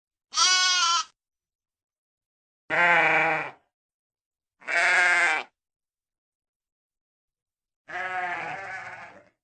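Sheep bleating: four separate bleats with dead silence between them. The first three are loud and under a second each; the fourth, near the end, is longer and quieter with a wavering pitch.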